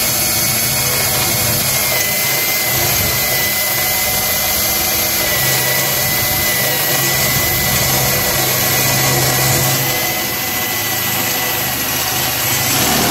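Cordless drill running steadily with a 3/8-inch bit grinding through steel, a constant whine over the cutting noise. The bit is slow to get through: the steel is thicker than expected, or the bit is dull.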